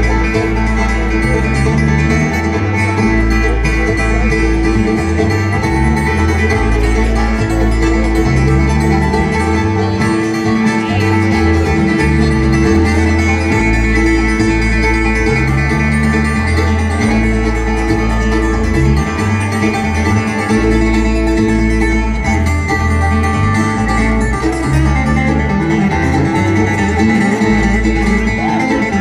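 Live bluegrass band playing loudly through a PA system: acoustic guitar and banjo picking over fiddle, mandolin and upright bass, with a steady bass pulse.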